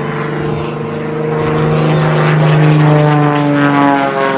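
Propeller-driven aerobatic airplane's engine droning overhead. It swells to its loudest about three seconds in, and its pitch drops as it passes.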